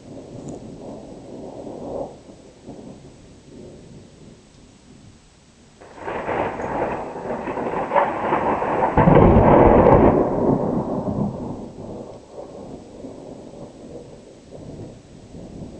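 Thunder rumbling, then a loud peal that breaks in suddenly about six seconds in, is loudest and deepest a few seconds later, and rolls away into low rumbling.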